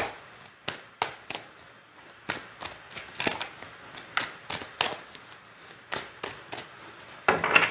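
Tarot deck being shuffled by hand, overhand: short, sharp card snaps at an uneven pace, about two or three a second, with a quicker run of snaps near the end.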